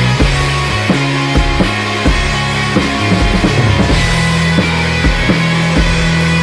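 Psychedelic rock band playing: electric guitars and bass over a drum kit keeping a steady beat.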